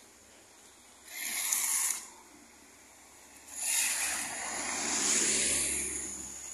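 Tyres hissing on a wet road as vehicles pass: a short swish about a second in, then a longer, louder one with a low rumble that swells and fades over the last three seconds.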